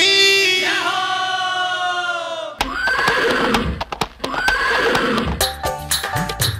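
A held musical note fades out, then a horse neighs twice, about a second apart, as a sound effect in a Rajasthani devotional song. Quick rhythmic knocking starts near the end as the next song's music comes in.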